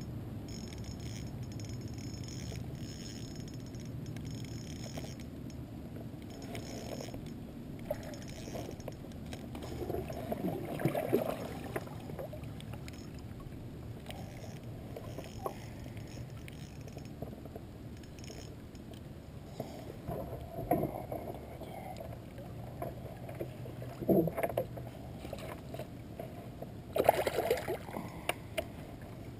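Handling noise in a kayak: scattered knocks and rattles against the hull and fishing gear as a spinning rod and reel are worked, the loudest clusters near the middle and near the end, over a steady low background rumble.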